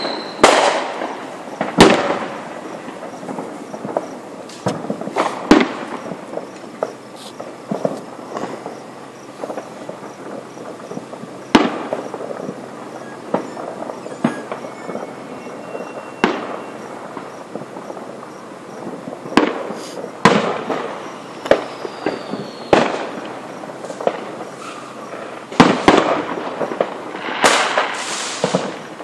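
Aerial fireworks going off: a string of sharp bangs at irregular intervals, some in quick crackling runs, with an occasional falling whistle, and a dense barrage of bursts near the end.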